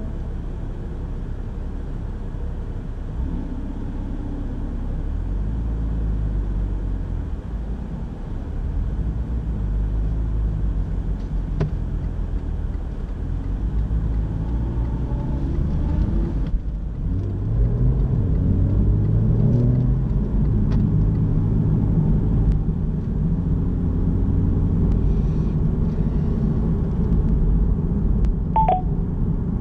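Car engine and low road rumble heard from inside the cabin, the engine note rising and falling as the car accelerates and changes gear, with a brief dip about halfway through followed by a rising pull.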